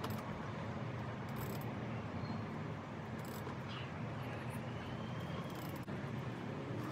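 Steady low outdoor background hum, with a few faint irregular clicks of a 10 mm wrench working a front-bumper bolt loose.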